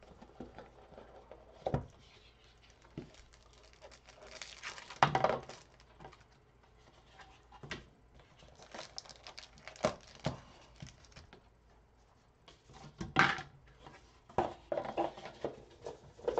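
Trading card box and foil pack being opened by hand: packaging rustling, crinkling and tearing, with scattered taps and clicks.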